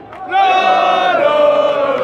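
Crowd of football supporters chanting in unison, many mostly male voices joining in about half a second in on a long held note.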